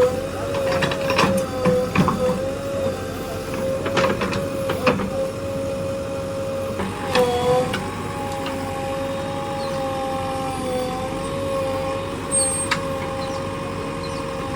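JCB 3DX backhoe loader's diesel engine and hydraulics running at a steady whine, the pitch dipping briefly a few times as the engine takes load. Several sharp metallic clanks in the first five seconds.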